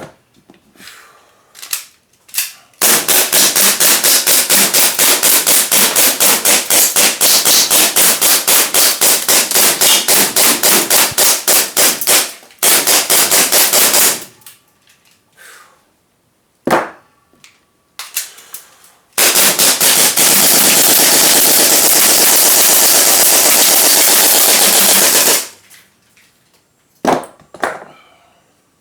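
Gas-powered airsoft gun firing full auto. A burst of about nine seconds of rapid, separate shots is followed by a shorter burst and a few single shots, then a six-second burst so fast that the shots run together, and a few last single shots near the end.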